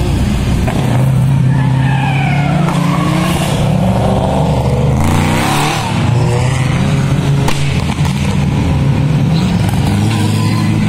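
Drift cars' engines running at high revs, the pitch rising and falling as the cars slide through a corner one after another, with tyre screech as they pass close by.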